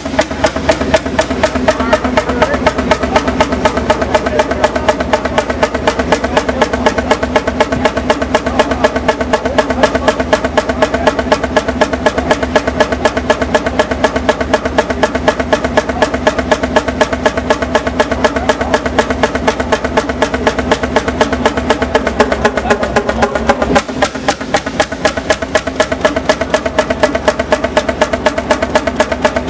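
Large 1942 Fairbanks Morse Model 32 two-stroke diesel stationary engine running with a steady, rapid beat. The beat briefly dips in loudness about three-quarters of the way through, then carries on.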